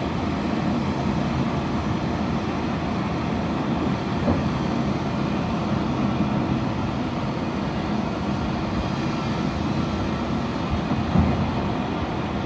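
Suction excavator truck running steadily, its engine and suction unit making a constant, even machine noise.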